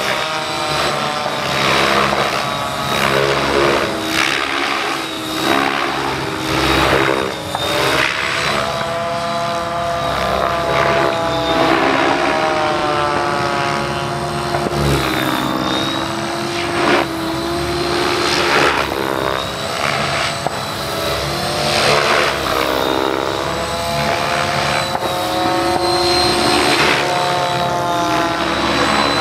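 Align T-Rex 700 DFC electric RC helicopter flying aerobatics: the brushless motor and drivetrain whine under the swish of the rotor blades. The pitch keeps rising and falling as the helicopter flips and changes direction.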